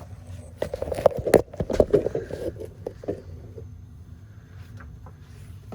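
DeWalt table saw running with a steady low hum. From about half a second in to three and a half seconds, wood rattles and knocks sharply against the spinning blade as the cut goes through the disc.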